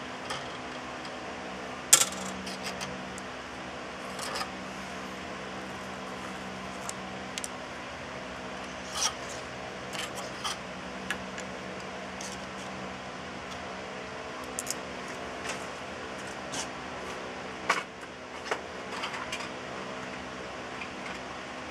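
Small metal tools or parts clinking and clicking now and then as they are handled and set down, over a steady machine hum. The sharpest clink comes about two seconds in.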